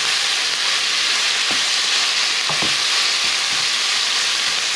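Mince and bacon sizzling in a non-stick frying pan, a steady hiss, with a few soft knocks and scrapes of a wooden spatula stirring it.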